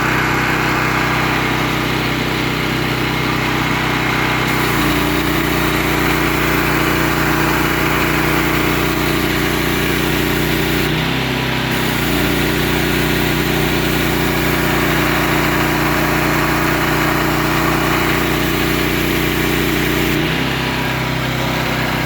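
Honda GX390 single-cylinder four-stroke engine running steadily, belt-driving a newly built pressure-washer pump on its first test run with water. Its note shifts slightly about four seconds in, briefly around eleven seconds, and again near the end.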